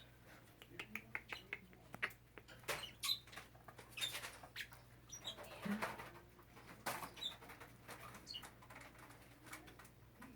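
Small grass parakeets moving about their cages: faint, scattered clicks and scratches of feet and beaks on wire and perches, with a few short, high chirps.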